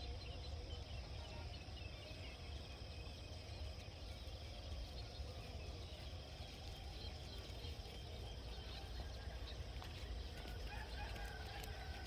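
Countryside ambience: faint, scattered bird calls over a steady low rumble, with a few more calls near the end.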